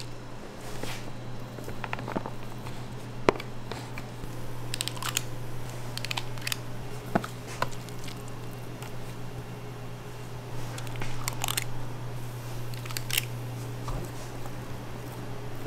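Spring-loaded stainless-steel portion scoops clicking and scraping as they scoop and release soft croquette filling: scattered sharp clicks, the loudest about three seconds in, over a steady low hum.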